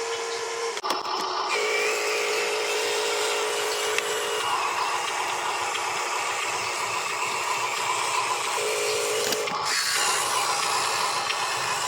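Small electric motors of a radio-controlled excavator running with a steady whine. The pitch steps between a lower and a higher tone every few seconds as the motors stop and start.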